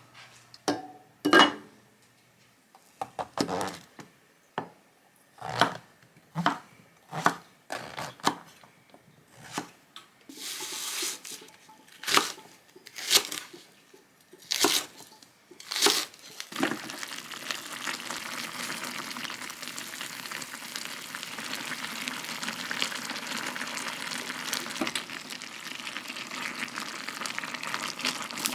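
Kitchen clatter, about a dozen sharp knocks of dishes and utensils being handled, then water starts running steadily from a tap about sixteen seconds in.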